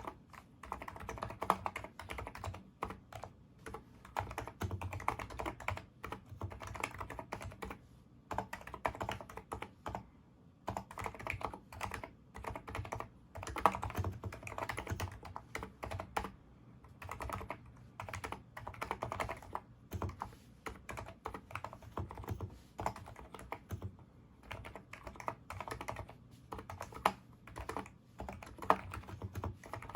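Typing on a NIZ Micro82 electrostatic capacitive keyboard with 35 g switches: fast runs of keystrokes with short pauses between them.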